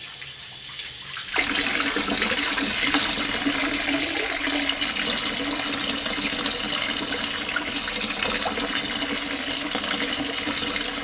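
Water running from a tap into a bathtub, filling it for a hot bath; the steady rush swells louder about a second and a half in and then holds even.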